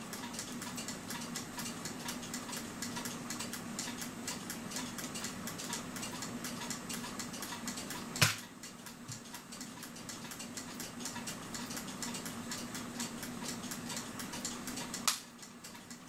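Rapid, even ticking from a cuckoo clock's brass movement as it is handled and worked on, over a steady low hum. Two sharper single clicks stand out, one about halfway and one near the end.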